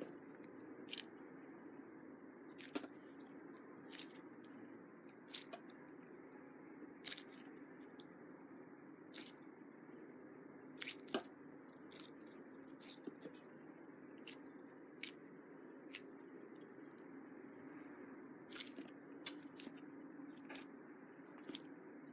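Slime-filled rubber balloon stress ball being squeezed and kneaded in the hands: soft squishing with scattered sharp crackles and pops, roughly one a second, over a faint steady hiss.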